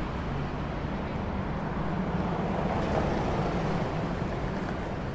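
Steady street ambience: a low traffic rumble that swells slightly about three seconds in.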